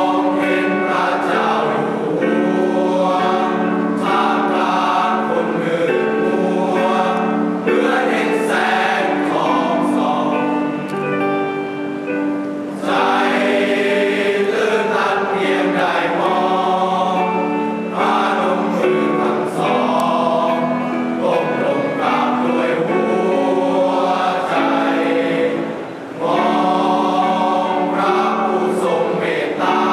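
Music: a choir singing a song in long held notes, with short breaks between phrases about twelve seconds in and again near the end.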